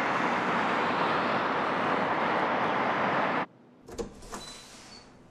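Steady rushing city traffic noise that cuts off suddenly about three and a half seconds in. It gives way to a few sharp clicks of a key turning in a metal apartment door's lock as the door is opened.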